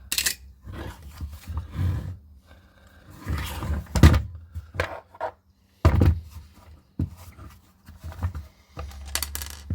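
Irregular knocks, clunks and rattles of a plastic cordless SDS drill body being handled as its loose casing screws are retrieved, with a sharper knock about four seconds in and another about six seconds in.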